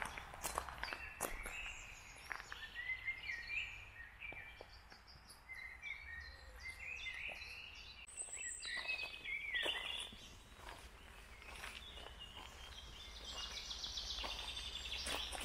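Songbirds chirping and singing in woodland, several short calls and warbles overlapping, over a steady low outdoor hum.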